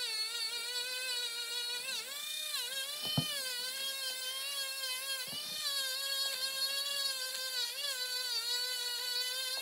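Parkside PFBS 12 C5 cordless rotary tool running with a felt polishing wheel, a steady high motor whine that sags briefly in pitch each time the wheel is pressed onto the ebonite pipe stem to buff it with abrasive paste. A small knock about three seconds in.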